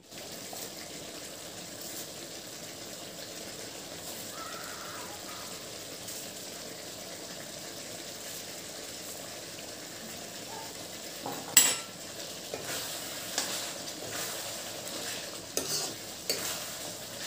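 Pork pieces in gravy sizzling steadily in a metal wok, with a metal spoon stirring and scraping the pan. A sharp clink of the spoon on the wok about two-thirds through is the loudest sound, with several lighter clinks near the end.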